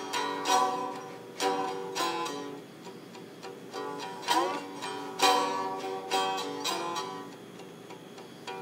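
Homemade plank-necked stringed instrument played with a slide: plucked notes that ring on over a steady drone, with a note slid upward about four seconds in.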